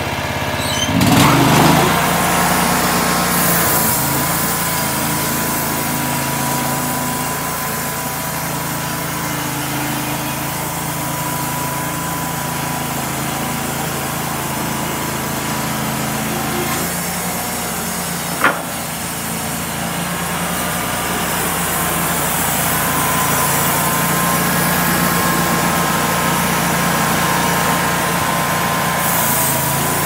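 Homemade band sawmill running steadily, its gas engine held at high throttle while the band blade cuts through a walnut log, with a steady whine above the engine. The engine revs up about a second in, and there is one sharp click partway through.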